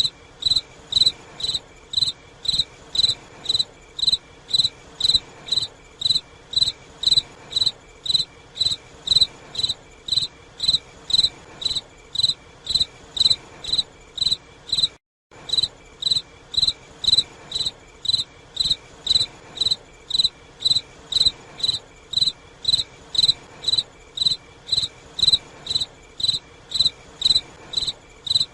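A cricket chirping in a steady, even rhythm of about two short high chirps a second. The sound cuts out for a moment about halfway through, then the chirping resumes at the same pace.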